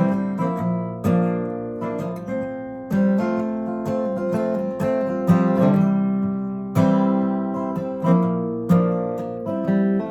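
Acoustic guitar playing an instrumental passage with no singing: chords struck every second or so and left to ring. It falls quieter near the end.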